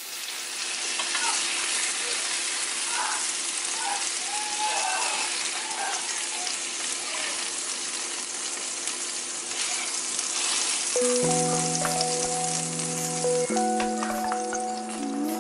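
Chicken breast fillets sizzling in hot oil in a frying pan, a steady frying hiss. Background music with sustained chords comes in about eleven seconds in.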